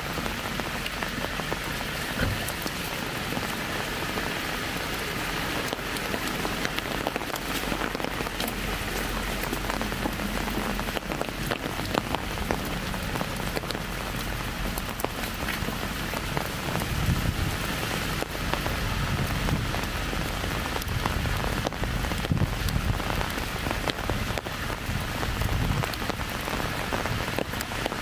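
Light rain pattering on an umbrella overhead: a dense, even crackle of small drops. About halfway through, a low rumble joins in.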